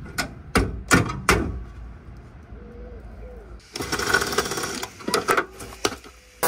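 Four sharp metal knocks about 0.4 s apart, then from a little past halfway a quicker run of tapping and clattering. It is metal being struck and worked while a body panel is cut out of a scrap Dacia.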